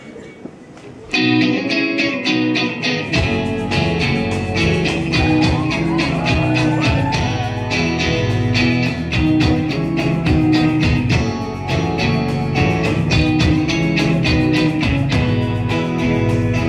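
Live band playing an instrumental song intro: electric guitar strumming starts about a second in with a steady, even rhythm, and the rest of the band, bass and drums, joins about three seconds in.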